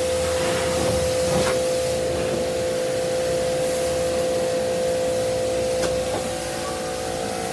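Cleaning machine's motor running with a steady whine over a constant hiss, easing slightly after about six seconds.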